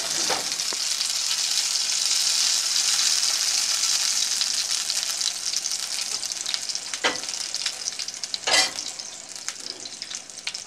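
A tortilla soaked in red chile sauce sizzling in hot oil in a skillet, a dense hiss from the wet sauce hitting the oil that is strongest at first and slowly eases off. Two sharp louder crackles stand out, about seven seconds in and again about a second and a half later.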